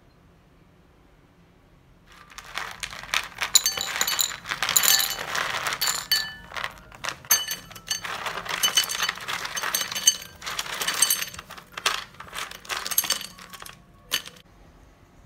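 Crisp caramel-coated bread cubes, the caramel cooled and set hard, tipped from a tray into a ceramic bowl, clattering and clinking against the bowl and each other. The clatter starts about two seconds in, runs on for some ten seconds and ends with a few last clinks.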